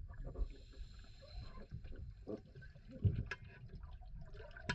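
Muffled underwater pool sound picked up by a submerged camera: dull low thumps and a few sharp knocks, the loudest about three seconds in, over a faint watery hiss.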